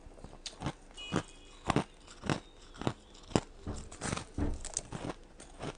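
Ice being bitten and chewed close to the microphone: a run of crisp, irregular crunches, roughly two a second.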